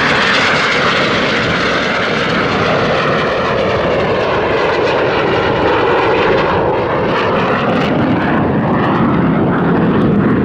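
BAE Hawk T1 display jets of the Red Arrows flying past, loud continuous jet engine noise with a slowly sweeping tone as they move.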